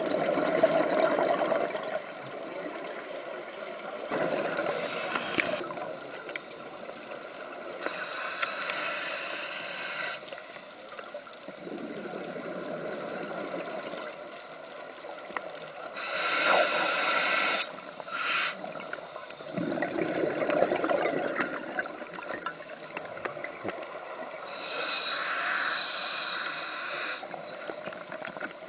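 Scuba diver breathing through a regulator underwater. Hissing breaths in alternate with gurgling rushes of exhaled bubbles, the cycle repeating every few seconds.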